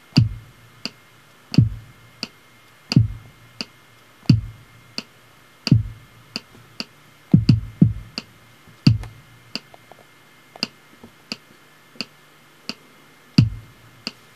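Drum-machine beat from the Beatmaker 2 iPad app's hip-hop kit, played live on its touch pads while recording. A steady high tick about every two-thirds of a second runs under deep kick-drum thumps that drop in pitch. The kicks fall about 1.4 s apart at first, then come as a quick double hit and one more, and after a pause of a few seconds a last kick lands near the end.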